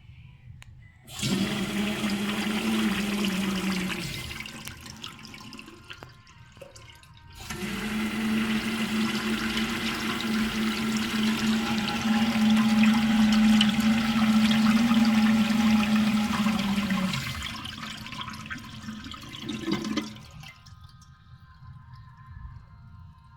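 INAX AWU-802AM sensor-integrated urinal flushing: a short rush of water, then after a pause a longer flush, with a steady droning tone running under the water both times. The drone is the abnormal noise of a faulty unit.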